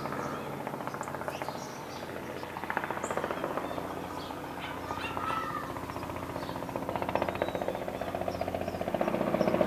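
A light two-bladed helicopter flying at a distance, its rotor beating in a fast, even chop that grows louder near the end as it comes closer. Small birds chirp now and then in the background.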